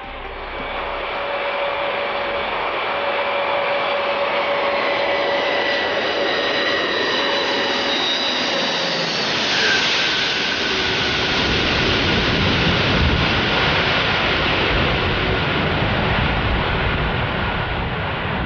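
The Antonov An-225's six turbofan jet engines running loud: a rushing roar with high whining tones that slowly fall in pitch. About halfway through the sound surges and a deeper rumble builds, as the aircraft passes by.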